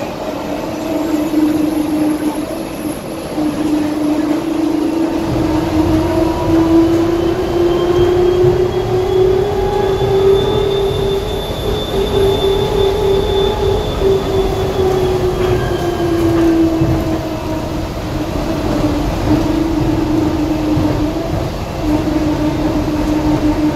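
Ride inside a Skylink Bombardier Innovia APM 200 people-mover car: the electric drive's whine rises in pitch as the train gathers speed, holds, then drops back again later on as it eases off. Under it, a steady low rumble of the rubber tyres on the concrete guideway comes in about five seconds in.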